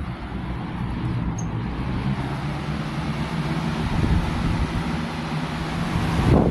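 2004 Galaxy box fan running steadily, an even rush of air over a low hum.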